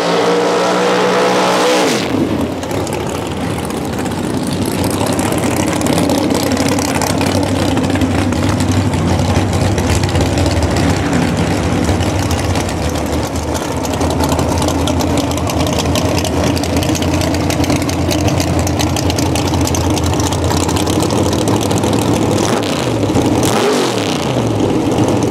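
Top Sportsman drag race car V8 engines. One revs up, climbing in pitch, and cuts off about two seconds in. The engines then run at a loud, rough, steady rumble, with a couple of quick revs up and back down near the end.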